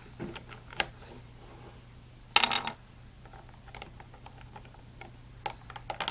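Plastic Rubik's cube pieces clicking and snapping while the cube is being put back together, with a louder short clatter about two and a half seconds in.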